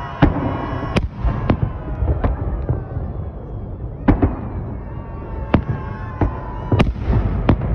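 Aerial firework shells bursting overhead: about eight sharp bangs at irregular intervals over a continuous low rumble of the display.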